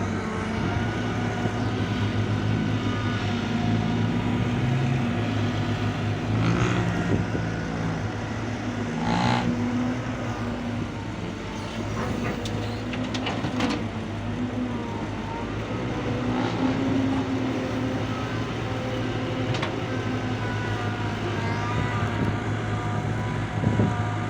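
Heavy diesel engines running steadily, with one engine's pitch rising and falling as it works under load. A few short knocks are heard along the way.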